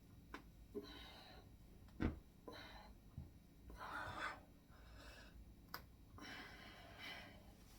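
A person breathing faintly in short puffs about every second and a half while doing bicep curls, with a few light clicks and one sharp knock about two seconds in.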